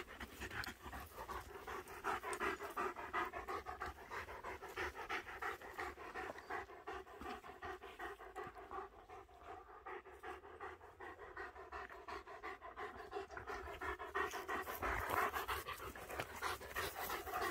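German shepherd panting quickly and steadily, close by, out of breath after a run.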